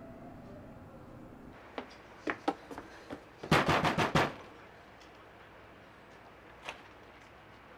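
Knocking on a front door: a quick run of about half a dozen loud raps, after a few lighter scattered taps and clicks. A low steady hum ends about a second and a half in.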